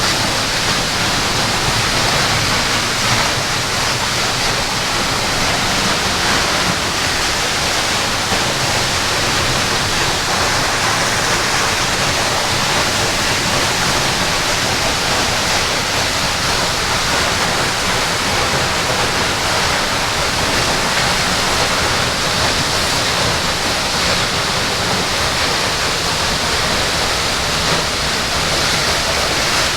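Waterfall rushing, a loud, steady wash of falling water that does not change.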